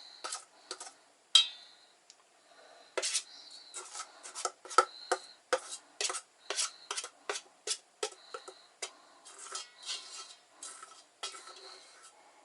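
A kitchen utensil scraping and tapping against a mixing bowl, cleaning dough out of it: a quick, uneven run of short scrapes and clicks, some with a brief metallic ring.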